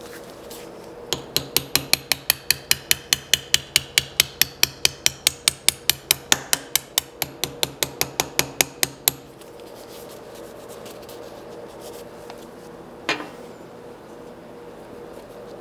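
Quick series of light hammer taps on a DoAll drill press, about four a second for some eight seconds, then a single knock near the end.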